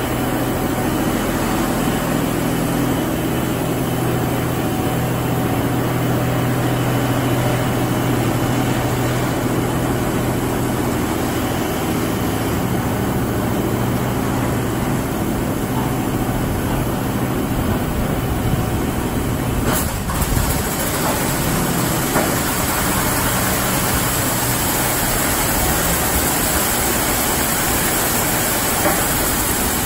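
A D&S Quicksilver automatic car wash running over a pickup truck, giving a steady, loud machine noise with a low hum that fades out after about eleven seconds. There is a brief knock about twenty seconds in.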